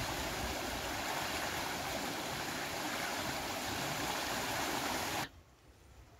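Fast-flowing stream rushing over a fallen log and a snag of branches: a steady, even rush of water that cuts off abruptly about five seconds in.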